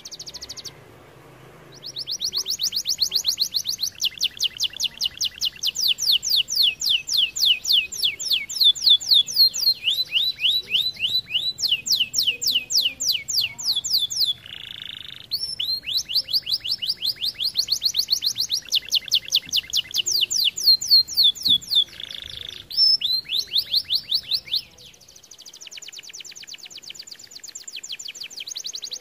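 Red-variant canary singing a long song of rapid trills, each phrase a fast run of repeated high notes, changing speed from phrase to phrase. Twice a lower, harsher note breaks in. Near the end the trill turns softer and faster.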